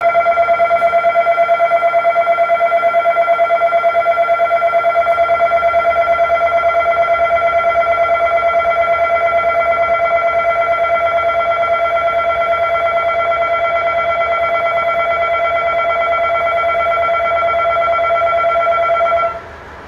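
Station departure bell ringing steadily with a fast, even pulse, signalling that the train is about to leave; it cuts off suddenly near the end.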